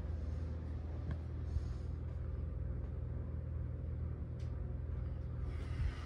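Hunter Lantern Bay 54-inch ceiling fan running steadily, a low pulsing hum from the motor and turning blades with a faint steady tone above it. A faint tick comes once or twice.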